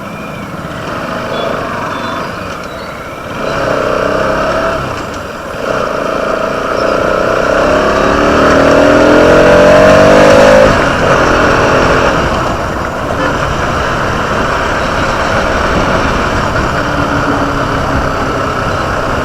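Motorcycle engine being ridden along a road, over steady wind and road noise; about seven seconds in it revs up, rising in pitch, and falls away sharply at its loudest point, about ten seconds in.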